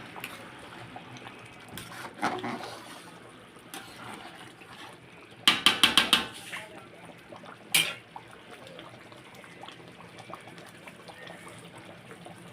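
Kitchen handling sounds: a quick run of about five sharp knocks halfway through and a single knock a couple of seconds later, over a faint wash of water.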